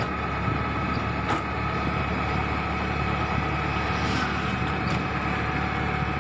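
Auto rickshaw's small engine running steadily on the move, heard from inside the open-sided cabin with road and wind noise, and a few brief knocks.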